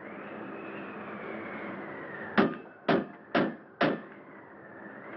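Four sharp knocks on a wooden cabin door, about two a second, over a steady wind with a wavering whistle.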